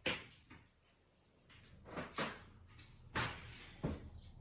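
A handful of short knocks and scrapes, about four, of a tool being worked under a part of the truck to pry it up.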